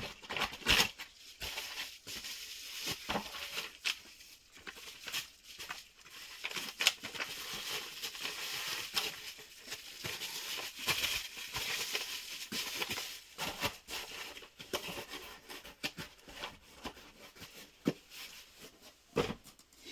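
Packaging crinkling and rustling as small mounting parts are unwrapped and handled, with scattered sharp clicks and knocks.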